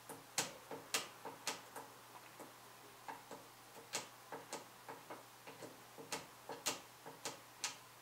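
Small tactile Start button on an Asus Crosshair IV Formula motherboard clicking under rapid, repeated presses, about three sharp clicks a second at an uneven pace, stopping shortly before the end.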